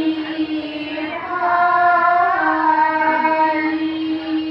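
A group of women singing an Assamese thiyo naam devotional chant in unison, without drums, drawing out long held notes.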